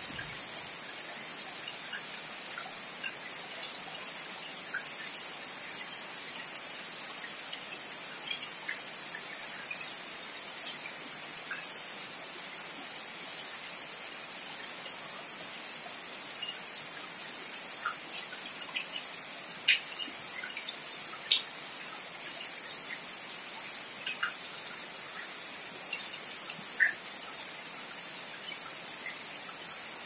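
Steady rain falling on trees and wet ground, an even hiss dotted with scattered sharper drops and splashes.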